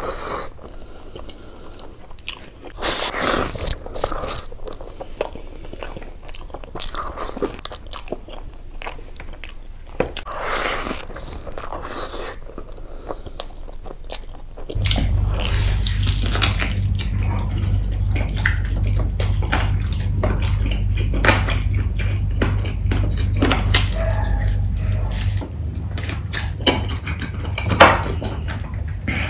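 Close-miked mouth sounds of a person eating biryani and meat curry by hand: wet chewing, biting and lip smacking in quick irregular bursts. A steady low hum comes in about halfway through and fades again near the end.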